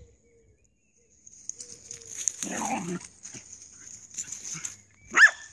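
Small dog giving one sharp, high-pitched yelp near the end, after a few seconds of quieter scuffling noises.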